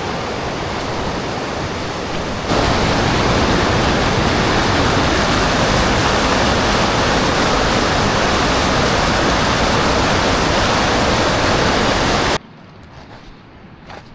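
Waterfall's rushing water, a loud steady roar that jumps louder about two and a half seconds in. It cuts off abruptly near the end, leaving a much quieter background with a few faint clicks.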